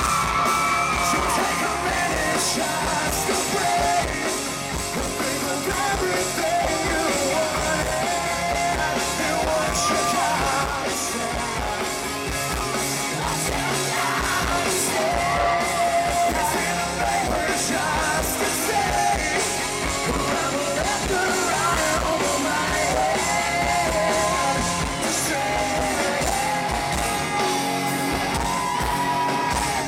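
Live rock band playing: a male lead singer singing loudly over electric guitars and a steady drum beat.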